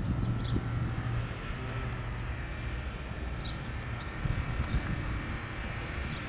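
Lockheed C-130H Hercules flying over, its four Allison T56 turboprops droning. A steady low hum eases off about a second in, leaving a rumble with a faint higher whine.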